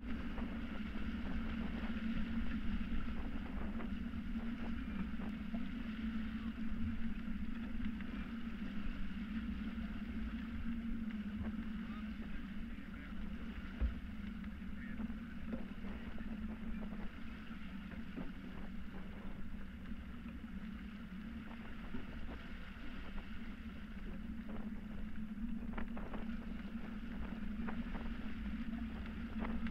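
Steady rush of water along the hull of a Hanse 355 sailing yacht moving fast under sail, with a low rumble and scattered small knocks.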